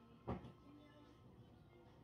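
Faint background music, with one short soft noise about a quarter of a second in.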